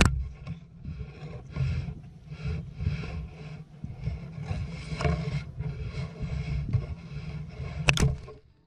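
Long-tailed shrike parents scolding at the nest with a rapid string of harsh, rasping calls close to the microphone. A single sharp knock near the end as a parent bird strikes the camera.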